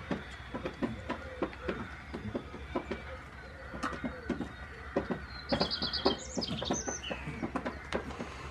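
A goat chewing close by, a steady run of short crunches about three a second. A small bird chirps, with a quick trill about five and a half seconds in.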